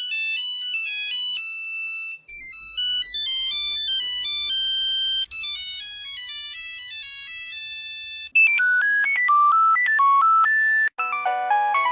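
A run of Nokia mobile phone ringtones, each a few seconds long, cut one after another. It starts with high, simple beeping melodies and moves to fuller polyphonic versions. The ringtone changes abruptly about two, five, eight and eleven seconds in.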